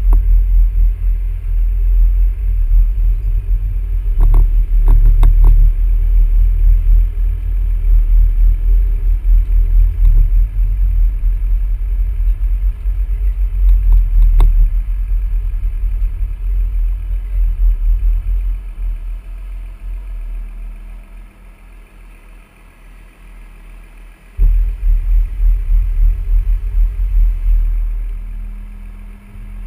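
Wind buffeting the microphone of a camera hung from crane rigging: a heavy, uneven low rumble, with a few short clicks about four to five seconds in. The rumble dies away for a few seconds and comes back suddenly near the end.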